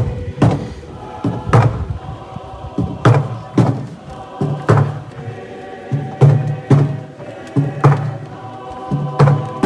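Choir singing to a regular percussion beat, struck about every second and a half, every other beat doubled.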